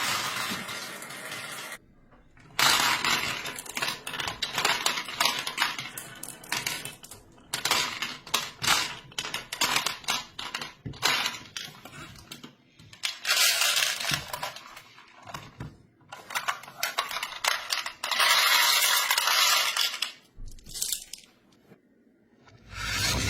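Marbles clattering and clicking as they are tipped and roll along a toy block track: many quick clicks, with denser rattling spells around thirteen and eighteen seconds in.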